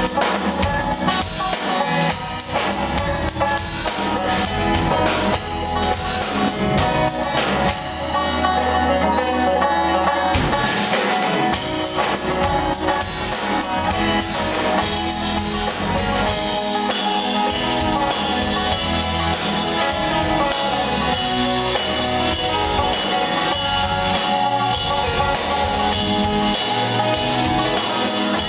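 A live band playing a song, heard from the audience: guitars and a drum kit. No spoken words.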